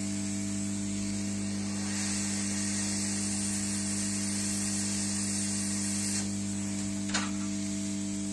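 Hot air rework station blowing onto the laptop motherboard to desolder the charge controller IC: a steady hiss of air over a constant hum. The hiss grows louder about two seconds in and cuts off suddenly about six seconds in, followed by a single click.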